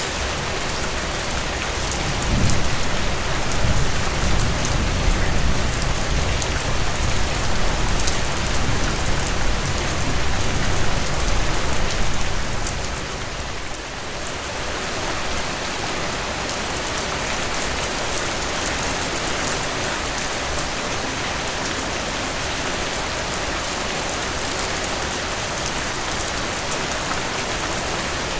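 Steady rain falling on a surface: a dense, even hiss of drops with scattered sharper drop ticks. From about two seconds in, a low rumble swells under the rain, making this the loudest stretch, then fades away about thirteen seconds in.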